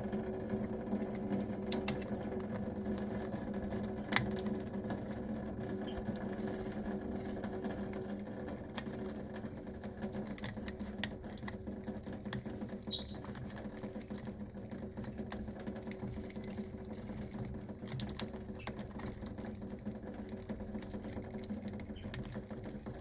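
A lovebird bathing: scattered small splashes and patters of water from its wings, with one short, high chirp about halfway through, over a steady low hum.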